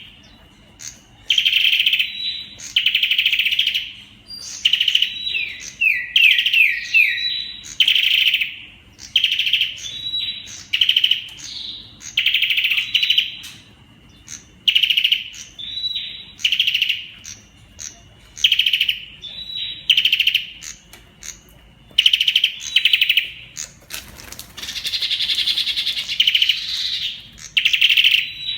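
Olive-backed tailorbird (Orthotomus sepium) singing loud, rapid-fire rattling phrases, each about a second long, repeated every second or two. A run of quick down-slurred notes comes about five to seven seconds in, and a longer phrase near the end.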